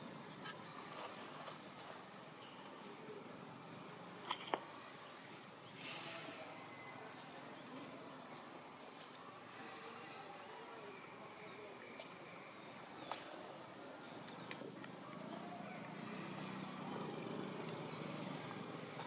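Outdoor insect ambience: a steady high-pitched insect buzz with short high chirps repeating roughly once a second, and a few sharp clicks.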